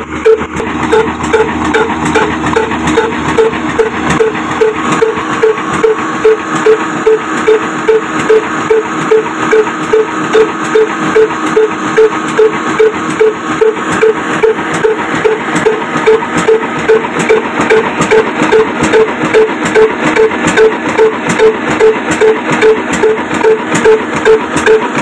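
Old single-cylinder stationary engine with a heavy flywheel running steadily, beating sharply and evenly about twice a second over a constant mechanical clatter.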